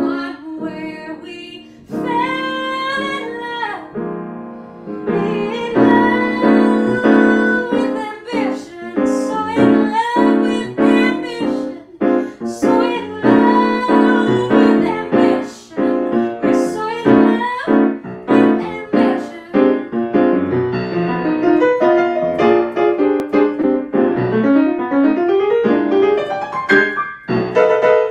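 A woman singing with her own grand piano accompaniment: chords and running phrases under a sung melody. Near the end the piano plays on alone.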